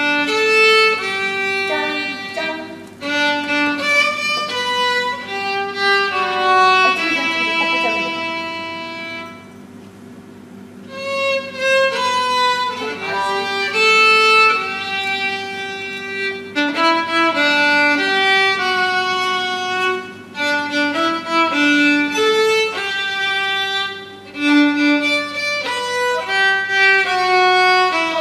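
Solo violin played live, a melody of held notes with the intonation noticeably off-pitch. The playing drops away briefly about ten seconds in.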